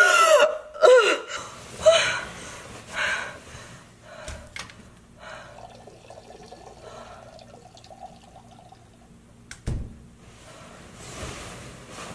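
A woman gasping and straining for breath a few times in the first three seconds, as if being smothered. Quieter sounds follow, with one sharp thump about ten seconds in.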